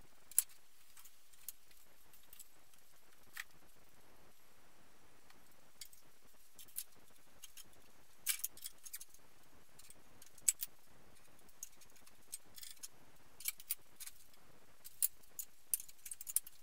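Sparse, irregular metallic clinks and ticks, bunching about eight seconds in and again near the end. They come from an engine crane's lifting chains and fittings as the hanging engine is moved.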